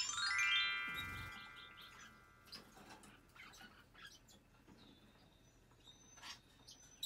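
A quick descending run of bell-like chime tones rings out at the start and fades away over about two seconds. Faint bird chirps and small scattered clicks follow.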